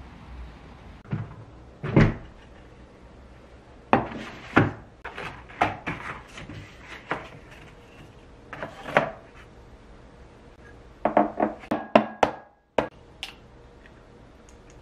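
Close-up kitchen handling sounds: irregular knocks and clatters as a plastic egg carton is opened and eggs are handled by a wooden bowl. Near the end comes a quick run of sharp taps as an egg is cracked against the bowl's rim.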